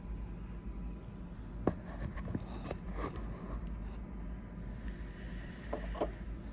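A few light clicks and taps from handling small objects, the sharpest about a second and a half in, over a low steady hum.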